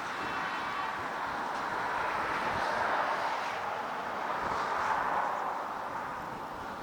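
Passenger train rolling along the track, a steady rushing noise that swells twice and then eases off near the end.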